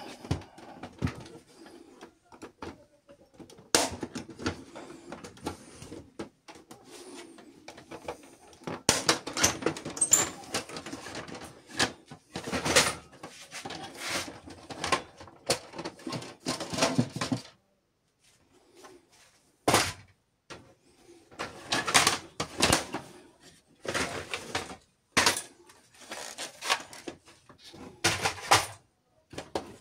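Irregular plastic clicks, knocks and scraping as hands work the plastic housing of a Canon i-SENSYS LBP6670dn laser printer, prying at its covers and latches. There is a short pause just past the middle.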